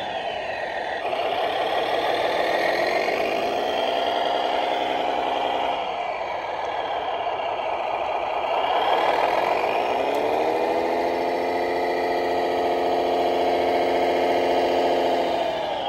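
Radio-controlled model vehicle running, its engine sound rising in pitch, holding steady, then dropping about six seconds in. It climbs again around ten seconds in and falls away near the end.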